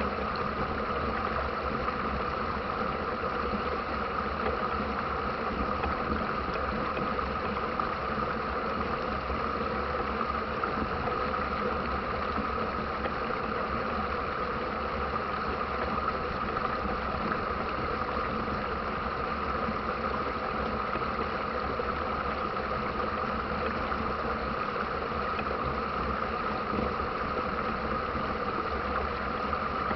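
Steady rush of river rapids, water pouring over rocks in an even, unbroken roar.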